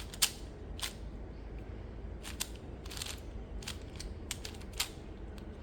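Light plastic clicks and clacks at irregular intervals, from hands handling a puzzle cube and its plastic packaging.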